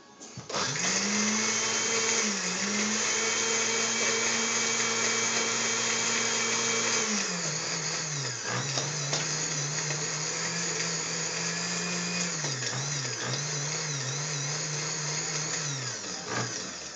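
Countertop blender motor running on a mix of Mountain Dew, whipped cream, cherries, chocolate and sour candy. It starts about half a second in, holds a steady higher pitch for about six seconds, then drops to a lower pitch with several brief dips, and stops shortly before the end.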